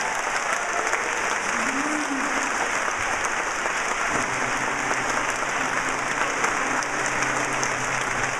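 Theatre audience applauding steadily. About four seconds in, an instrument starts holding low, steady notes beneath the clapping.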